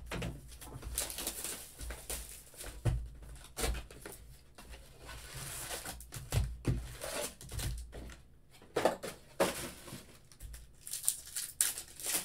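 Shrink wrap torn off a sealed hobby box of baseball cards, the cardboard box opened and its foil card packs handled: irregular crinkling, rustling and tearing crackles.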